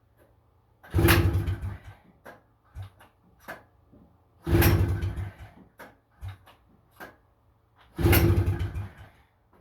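Honda FL250 Odyssey's two-stroke single being pull-started three times, about a second of cranking each time and then dropping away without settling into a run, as the engine will not start.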